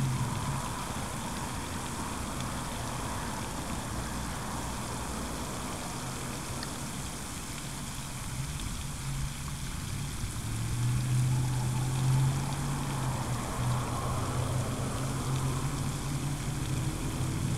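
Steady rushing hiss of water spray from a pond fountain, with a low hum underneath that grows louder for a couple of seconds past the middle.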